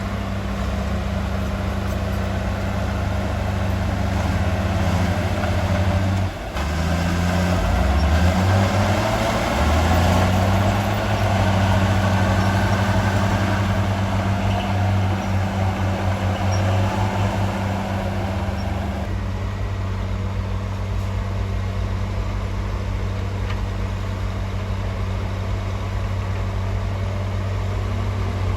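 Heavy diesel engine of earthmoving machinery running steadily, its pitch rising and falling as it revs under load through the middle, then settling back to a steady drone.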